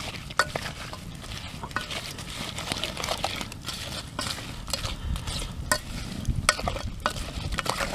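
Wooden spoon stirring chopped apples in a metal camp pot: irregular clicks, knocks and scrapes of spoon and fruit against the pot.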